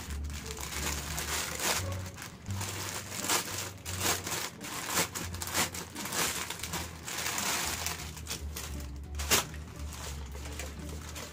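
Plastic packaging crinkling and rustling as a courier polybag is opened and a dress pulled out, with irregular crackles throughout. Background music plays quietly underneath.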